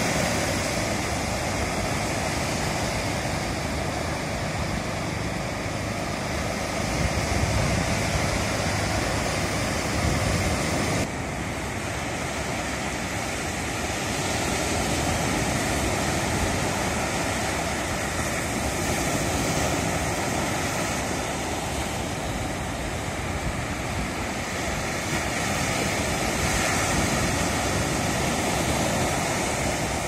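Small ocean waves breaking and washing up on a sandy beach: a steady rushing surf that swells and eases every few seconds. About eleven seconds in the sound shifts abruptly, as at a splice in the recording.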